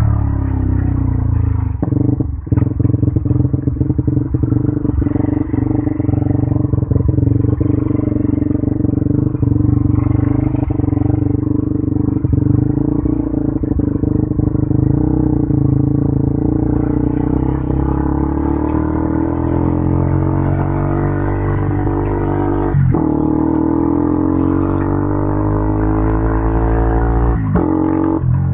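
KTM 200 Duke's single-cylinder four-stroke engine through an Akrapovic exhaust, ridden at low revs in slow traffic with a choppy, uneven firing note. About two-thirds of the way in it revs up with rising pitch, with two brief drops in revs near the end as it changes gear.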